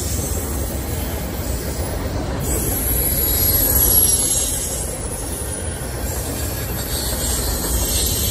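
Intermodal freight train's cars rolling past: a steady rumble of steel wheels on rail, with a high squeal of the wheels that swells about a third of the way in and again near the end.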